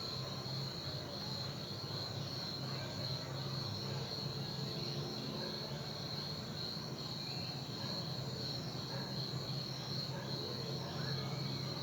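Crickets chirping in a steady, unbroken high trill, over a constant low hum.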